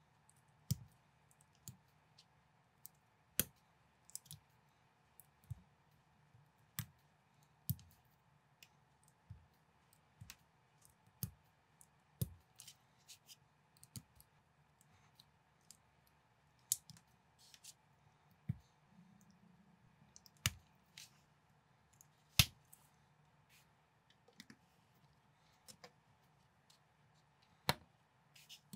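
Plastic building bricks clicking and snapping together as pieces are pressed on by hand: irregular sharp clicks every second or so over a faint steady hum, the loudest about two-thirds of the way through.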